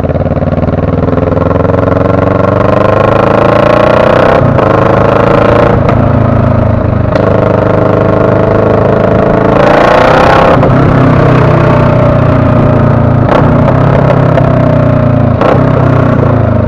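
Motorcycle engine running loud while riding through traffic, its pitch rising slowly as it pulls up through the revs and then easing off. A short rush of hiss comes about ten seconds in.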